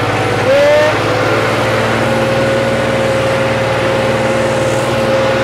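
John Deere diesel tractor engine running steadily under load as it pulls a cultivator through hard soil. From about half a second in, a long steady tone is held over the engine.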